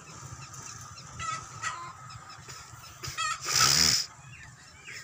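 Farm fowl clucking and calling several times over a low steady rumble from an old stationary diesel engine. A loud hiss lasting under a second comes about three and a half seconds in.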